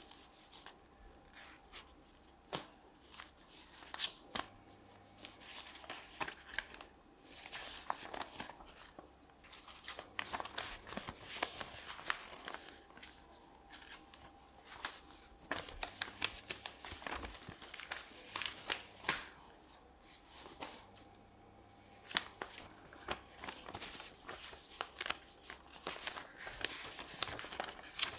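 Sheets of paper board-game play money being handled: irregular rustling and crinkling, broken by sharp paper crackles and clicks.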